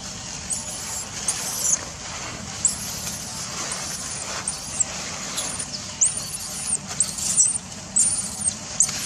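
Infant macaque squealing: about a dozen short, very high-pitched squeals, each rising and falling, some coming in quick pairs.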